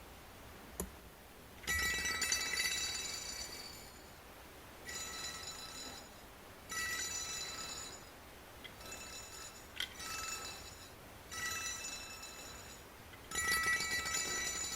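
Sasaki Kougei 'Fukurai' wooden door chime: three wooden balls bounce on its strings as the door swings, ringing a soft chord of several tones. It rings six separate times, each ring fading over a second or two, with two short clicks in between.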